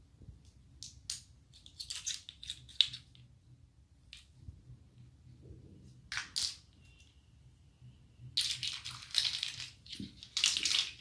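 A plastic measuring cup and spoon set being handled: scattered light clicks and short rustles, then longer spells of rustling from about eight and a half seconds in.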